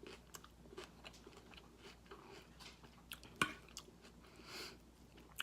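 Close-miked chewing and biting of a kale salad, with small crunches and moist crackles, and one sharper click about three and a half seconds in.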